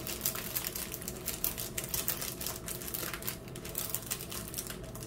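Small zip-lock plastic bags of diamond-painting rhinestones handled and stacked by hand: quick, light clicking and crinkling of plastic and loose rhinestones, thinning out near the end.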